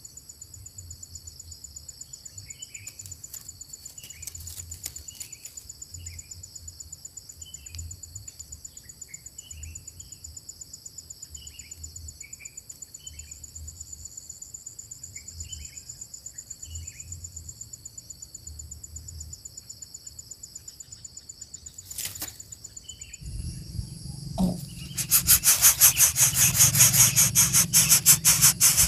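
Small birds giving short repeated chirps, about one a second, over a steady high drone of insects. Near the end a much louder rhythmic rattling noise takes over.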